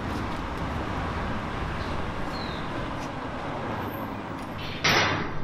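Steady city street ambience with a low hum of traffic, and one short, high chirp about two and a half seconds in. Just before the end it cuts to a sudden louder hiss.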